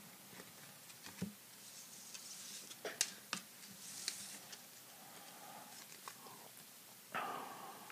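1991-92 Upper Deck basketball trading cards being handled: soft clicks and taps of card stock with light rustling as the stack is gathered up, and a longer rustle near the end.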